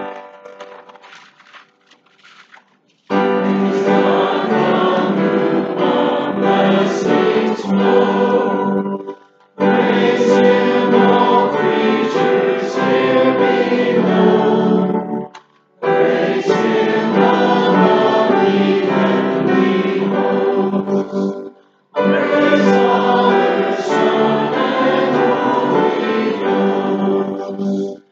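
Congregation singing a short hymn in four phrases of about six seconds each, with brief breaths between them, after an opening chord that dies away over the first few seconds.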